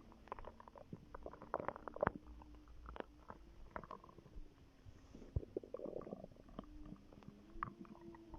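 A pregnant woman's stomach gurgling: an irregular run of small pops and clicks mixed with a few drawn-out, even-pitched squeaky gurgles, with a busier patch of bubbling about two-thirds of the way through.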